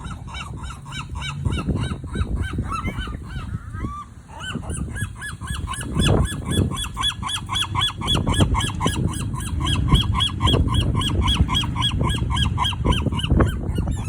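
Seagulls calling in a fast run of repeated squawks, about six a second, with a short break about four seconds in. A low rumble runs underneath.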